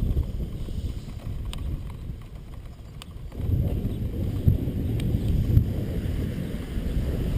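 Low, uneven rumble of a thunderstorm's wind and thunder, swelling about three seconds in, with a few faint sharp clicks.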